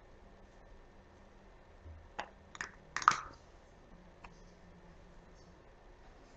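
Small objects handled and set down: a few light clicks and knocks between two and three seconds in, the loudest just after three seconds, then a faint tick, over quiet room tone.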